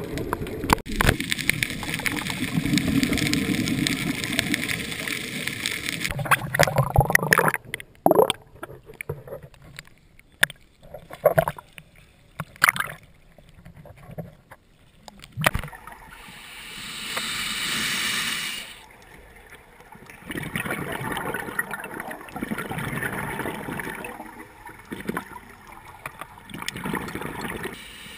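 Water noise through a GoPro's underwater housing: a dense rush of scuba exhaust bubbles for the first several seconds, then scattered knocks and splashes at the surface. A hiss swells and fades about halfway through, and a rougher rush of water returns in the last third.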